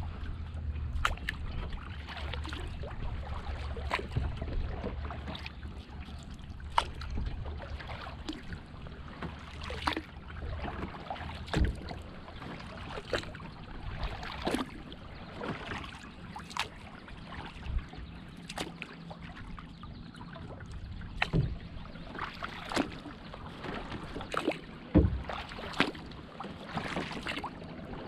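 Double-bladed kayak paddle strokes on calm water: the blades dip and splash, and water drips and laps against the hull, with irregular sharp splashes and knocks among a steady wash. A low rumble fills the first half.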